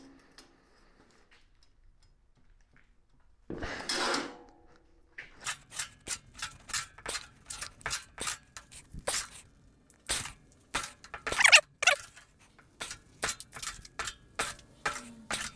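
Sharp metal clicks and knocks, irregular, one or two a second, from a 3/16-inch steel plate and its lever as the plate is forced to bend along a partly cut line. A short scraping rustle comes a few seconds before them.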